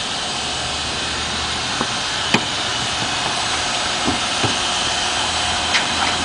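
Steady car-wash machinery noise: a constant hiss over a low hum, with a couple of short sharp clicks.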